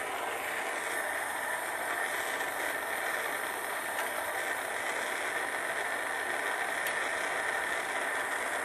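Plumber's gas torch burning with a steady hiss, its blue flame heating a copper fitting so that solder is drawn into the sweat joint.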